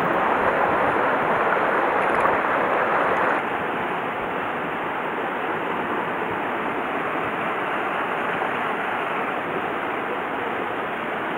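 Mountain stream water rushing over rocks: a steady, even rush that drops a little in level about three and a half seconds in.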